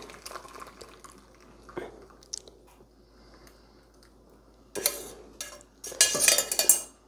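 A metal pot and noodle strainer knocking and clinking while anchovy and kelp broth is strained. There are a few light knocks at first, then a louder clatter with a rushing sound about five seconds in and again near the end.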